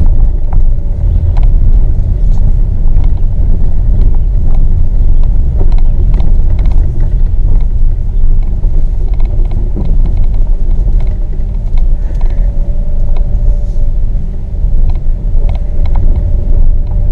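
Car driving slowly over a rough, sandy dirt trail: a steady low rumble of tyres and suspension, with scattered small clicks and knocks.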